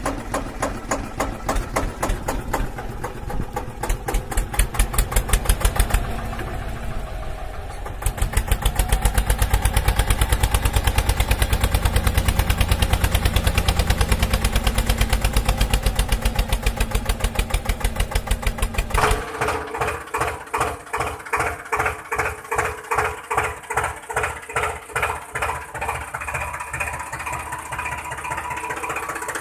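Tractor engine sound running with a fast, even pulse. It grows louder about a third of the way in, and past halfway the beat turns slower and more distinct.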